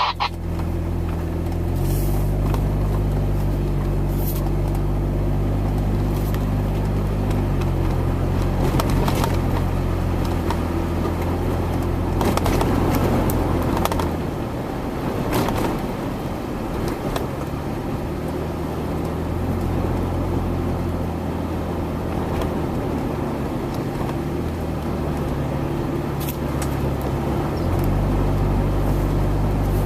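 A motor vehicle's engine running steadily, its pitch stepping up and down several times, under a rushing noise.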